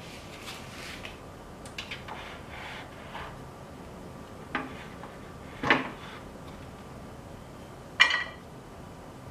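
Things being handled on a tabletop: soft rustling, then two knocks. Near the end comes the loudest sound, a sharp, ringing metal clank as a frying pan is set down on the grate of a portable cassette gas stove.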